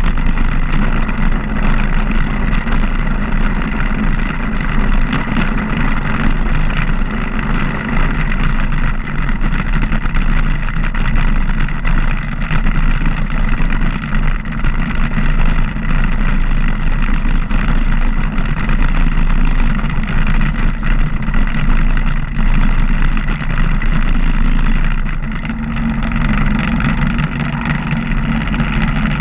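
Vintage BMW motorcycle engine running steadily at town speed while riding over cobblestones. The low engine note grows stronger for the last few seconds as the road turns to smooth asphalt.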